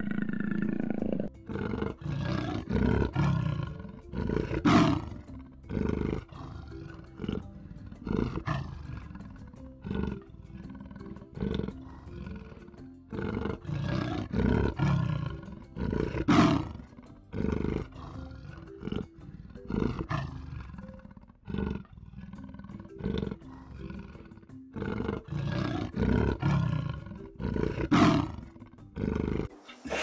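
Leopard roaring: a long run of short calls at uneven spacing, loudest about five, sixteen and twenty-eight seconds in, over background music.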